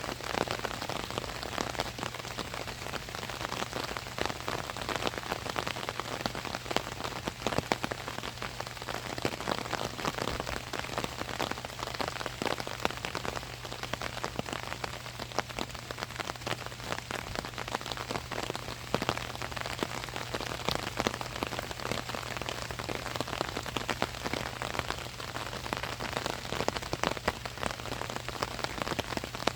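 Rain falling on an umbrella overhead: a steady, dense stream of drops striking the canopy, with a low steady hum underneath.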